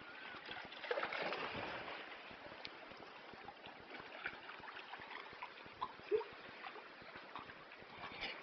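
Sea water splashing and gurgling among rocks, with scattered small knocks and a louder stretch of splashing about a second in.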